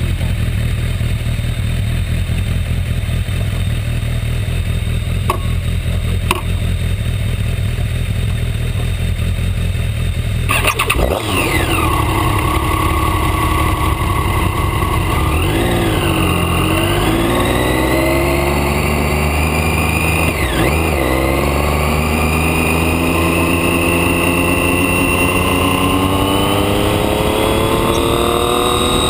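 Motorcycle engine idling steadily, then about ten seconds in pulling away and accelerating through the gears, its pitch climbing and dropping sharply at each of two shifts before settling into a steady run.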